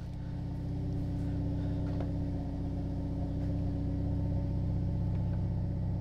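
Hyundai i30N's turbocharged 2.0-litre four-cylinder engine idling steadily from a cold start while warming up, heard from inside the cabin.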